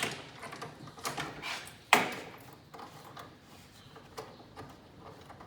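Sharp clicks and knocks of hard objects being handled: one at the start, a louder knock about two seconds in, then fainter scattered clicks.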